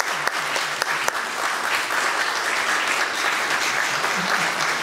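Congregation and choir applauding: steady clapping from many hands.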